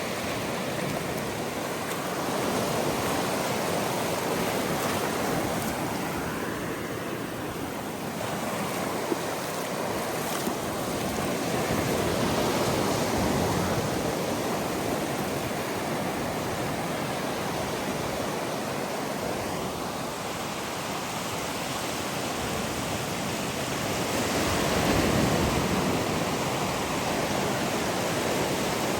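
Ocean surf: a continuous wash of waves that swells and eases every several seconds.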